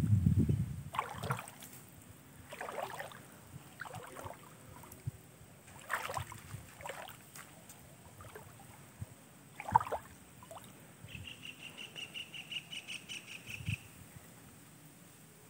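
Short splashes and sloshing of shallow floodwater from wading, with a burst of wind on the microphone at the start. About eleven seconds in, a bird gives a quick series of short high notes for nearly three seconds.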